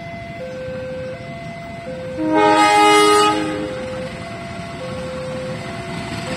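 Railway level-crossing alarm sounding two alternating tones over and over, and about two seconds in, an approaching diesel locomotive's horn blows once for just over a second, the loudest sound.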